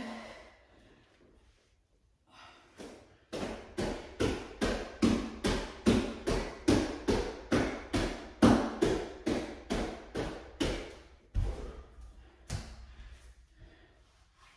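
A quick, even run of thuds on the floor, about three a second, for around eight seconds, then two slower ones. These are the impacts of bodyweight exercise.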